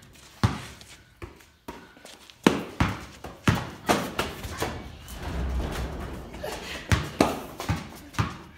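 Basketball bouncing inside a corrugated-iron shed: about a dozen irregular thuds, echoing off the metal walls, as the ball is dribbled and played under the hoop.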